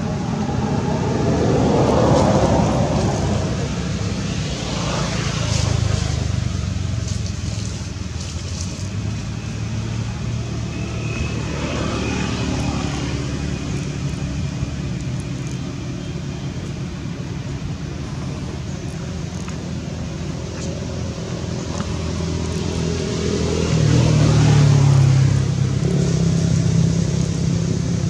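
Road traffic going past: vehicles swell in and fade away, loudest about two seconds in, again around six seconds, and once more near the end.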